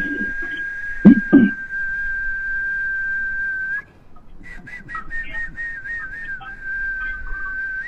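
A high, steady whistling tone held for nearly four seconds, then after a short break held again with slight wavering in pitch. Two sharp knocks, close together about a second in.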